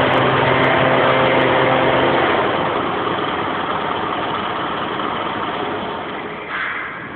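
Peanuts pouring from an overhead spout onto a pile, a steady rushing hiss with a machine hum beneath it. The hum stops about two seconds in and the rush of falling peanuts slowly fades.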